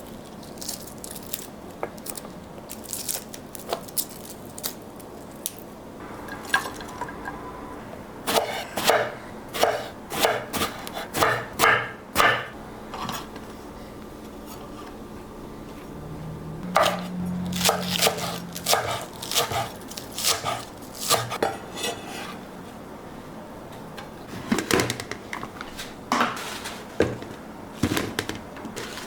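Kitchen work: an irregular series of clicks, taps and knocks of dishes and utensils, coming in busy clusters with short pauses between.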